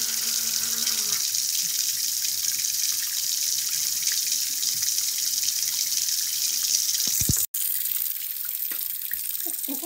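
Water running steadily from a bathroom tap into a sink. A short hummed tone comes in the first second, and the sound drops out for an instant at an edit about seven and a half seconds in.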